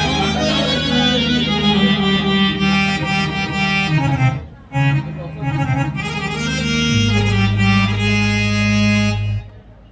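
Instrumental music played through a stage sound system during a sound check: sustained reed-like chords over a steady bass note that shifts lower about seven seconds in, with a brief break about four and a half seconds in and again near the end.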